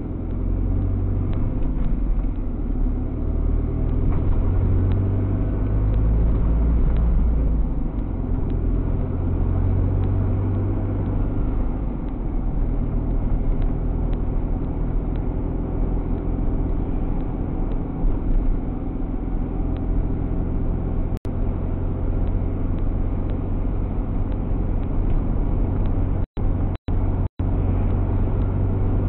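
Steady low engine and road rumble heard from inside a vehicle's cab while driving. The sound cuts out briefly once about two-thirds of the way through and three times near the end.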